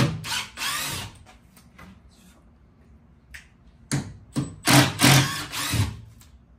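Cordless drill-driver whirring in short bursts as it backs screws out of a plywood shipping crate: a cluster of whirs at the start, then another run of short bursts from about four seconds in.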